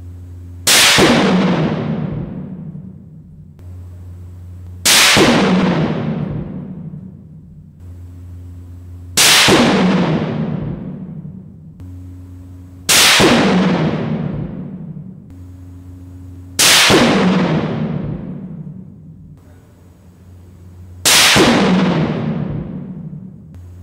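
Six single 5.56 mm rifle shots from a clamped test barrel in an indoor ballistics range, one about every four seconds. Each crack rings on in a long echo that fades over about three seconds.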